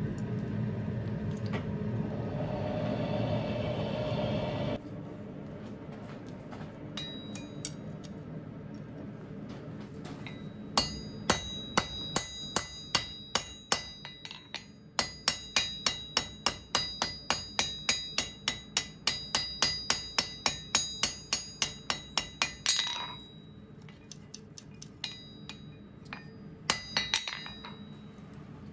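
A coal forge's air blower runs steadily for the first few seconds and shuts off. Then a hammer strikes glowing mild-steel flat bar on a steel anvil, bending a tong jaw around a pin block: a few scattered blows, then a run of ringing blows about three a second, and a few more near the end.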